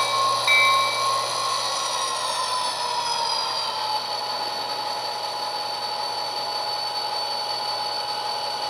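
HO scale model diesel locomotive's sound decoder playing a diesel engine through its small onboard speaker: a high engine whine that falls in pitch over a couple of seconds, then holds steady at idle.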